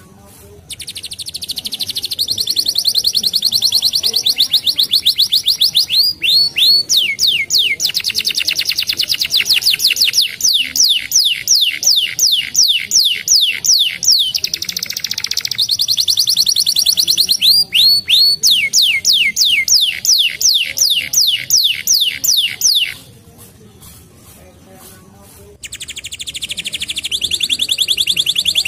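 Domestic canary singing long, rapid trills of repeated high notes, several notes a second, with a pause of a couple of seconds near the end before the trilling starts again.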